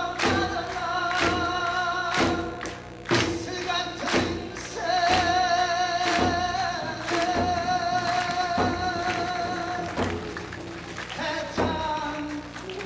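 Live music: sharp, irregular drum strikes under a long-held, wavering melody line.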